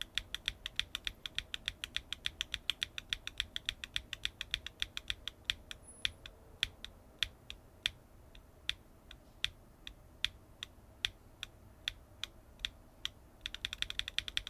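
Mechanical keyboard fitted with BSUN Ocean tactile switches (polycarbonate top housing, nylon bottom housing, LY stem) being typed on: pretty clacky keystrokes. They come in a quick run, thin out to single presses about one a second in the middle, then come fast again near the end.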